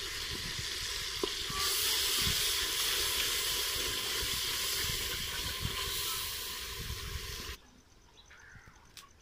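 Tomato and chilli masala sizzling in a metal pot as it is stirred with a wooden spoon, the sizzle growing louder after about a second and a half. It cuts off abruptly near the end, leaving faint outdoor ambience.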